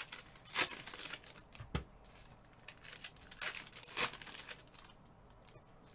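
Scattered crinkling and rustling of packaging being handled, a string of short, separate noises with a few louder ones standing out.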